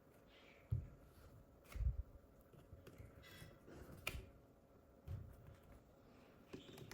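Hands handling the small plastic mini handheld fan: a few soft thumps and light clicks, with one sharper click about four seconds in.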